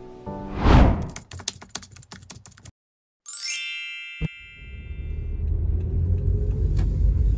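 Edited intro sound effects: a whoosh, a rapid run of clicks like typing, then a bright ringing chime that fades. After that a steady low rumble sets in.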